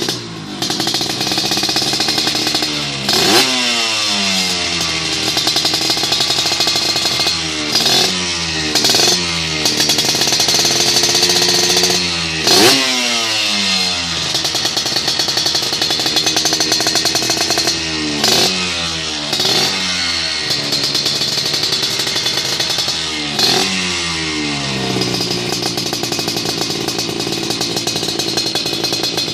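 Suzuki RGR 150 two-stroke single-cylinder engine with a C.I.A Racing aftermarket expansion-chamber exhaust, blipped about seven times. Each rev shoots up sharply and winds back down over a second or two, and the engine then settles into a steady idle near the end.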